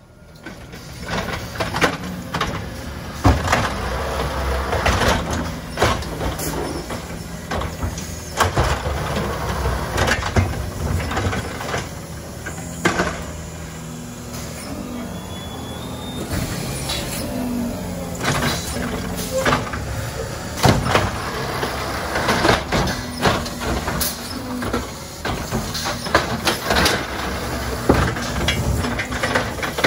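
All-electric side-loading garbage truck at work: a steady electric and hydraulic hum with no diesel engine note, broken by repeated clunks and bangs as it moves and handles the curbside carts.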